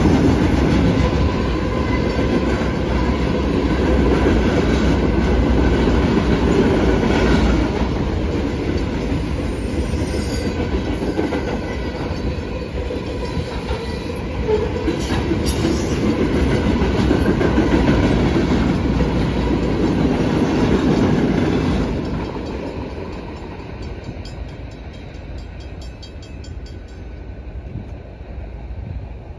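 Military freight train's flatcars loaded with army trucks rolling past, a steady rumble of wheels on the rails. The last car passes about three-quarters of the way through and the sound fades away.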